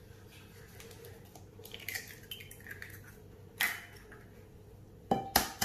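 Raw eggs being cracked into a glass bowl. A soft wet plop as egg drops into the bowl about two seconds in, a sharp tap about a second and a half later, and two quick taps of the next egg's shell against the bowl near the end.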